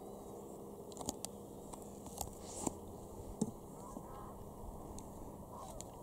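Geese calling faintly with short honks, mixed with several sharp clicks and knocks in the first half.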